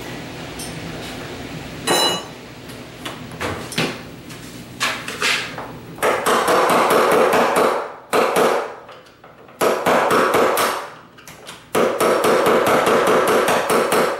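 Hammer tapping on a screwdriver wedged under the head of a door hinge pin to drive the stubborn pin up and out. There are a few scattered knocks at first, then three runs of fast metallic taps, each about two seconds long, in the second half.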